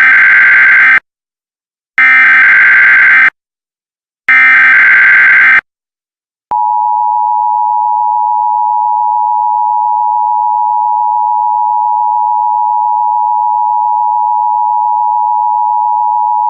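Emergency Alert System header: three bursts of warbling digital data tones, each just over a second, then the steady two-tone EAS attention signal starts about six and a half seconds in and holds. It marks the start of a new alert message.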